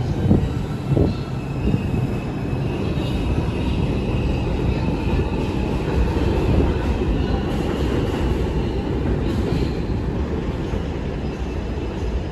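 R142 subway train running along the track with a steady rumble, a few sharp knocks from the wheels in the first two seconds, and a faint high whine through the middle.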